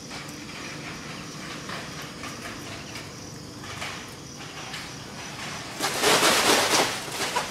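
A loud rustling burst close to the microphone, lasting about a second near the end, over a steady outdoor background hiss.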